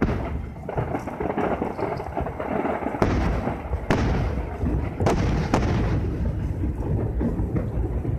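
Aerial firework shells bursting: sharp booms at the start and several more from about three seconds in, with a continuous rolling rumble between them.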